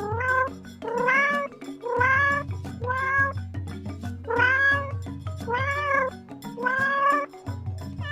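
A cat meowing repeatedly, about seven calls each under a second long that rise and then fall in pitch, over background music.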